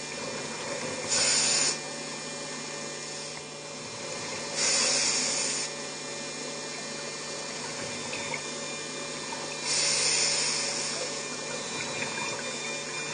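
Scuba diver's regulator underwater: exhaled breath bubbles out in three rushing bursts, each about a second long and spaced roughly every four to five seconds, over a steady underwater hum.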